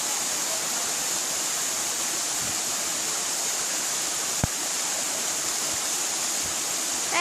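Waterfall water rushing steadily, with one brief click about four and a half seconds in.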